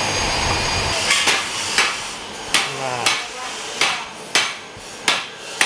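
Metal being struck over and over in an exhaust-pipe fabrication workshop: about nine sharp, ringing clanks at irregular intervals of roughly half a second, starting about a second in.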